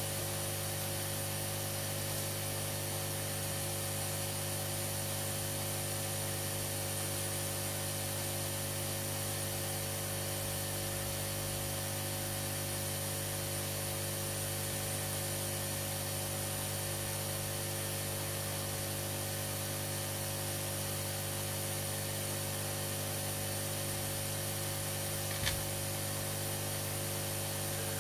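Aoyue 968 hot air station's air pump running steadily, a hum over the hiss of air blowing through the hot air hose. A faint click near the end.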